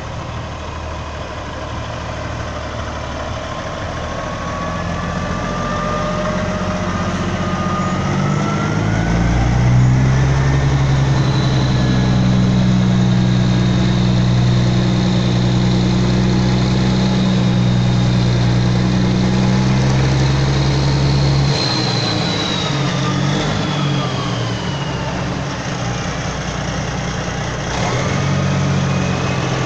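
Diesel engine of a Kenworth long-nose semi-truck running close by with a steady deep hum. It grows louder over the first ten seconds, holds steady, and eases off a little after about twenty seconds.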